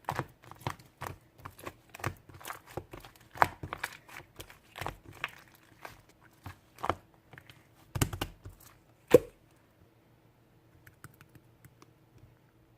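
Mint clear slime being squished and pressed by hand, giving irregular sticky clicks and pops, the loudest one about nine seconds in. After that the handling stops and only a few faint ticks are left.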